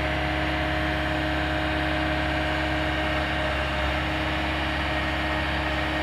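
Mecalac 8 MCR excavator's diesel engine running steadily while its tilt-rotator bucket works, with a steady whine over the engine hum.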